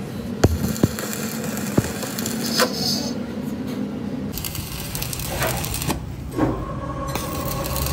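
Stick (arc) welding crackling as a weld is built up inside the bearing bore of a drive shaft's universal-joint yoke, with a few sharp pops in the first two seconds.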